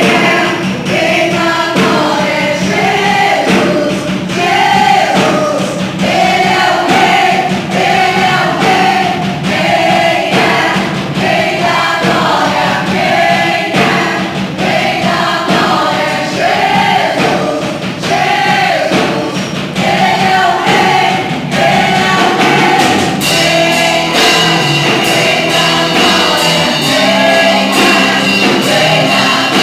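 A song with several voices singing together over instrumental accompaniment, in a gospel-like style. About 23 seconds in, the arrangement changes and a steady high tone comes in.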